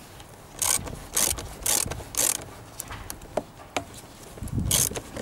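Socket ratchet clicking in short bursts about every half second, with a pause in the middle, as it tightens a worm-drive (Jubilee) hose clip on a rubber hose. The clip is being done up only to light resistance.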